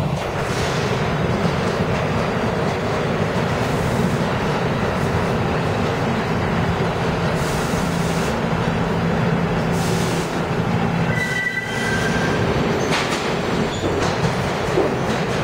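New York City Subway A train running into an underground station: a steady loud rush of steel wheels on rail with a low hum, and a brief high squeal about eleven seconds in.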